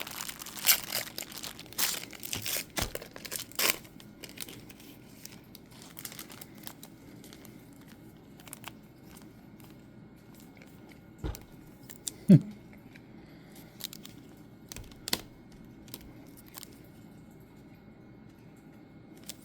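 Trading card pack wrappers being torn open and crinkled for the first few seconds, then quieter handling of the cards with scattered light clicks and rustles. About twelve seconds in comes one short, loud sound that falls in pitch.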